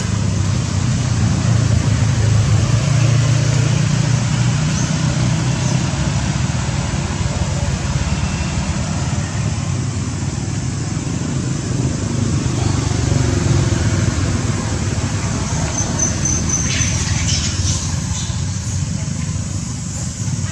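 Steady road traffic with a low engine rumble from motor vehicles. A few short high chirps come near the end.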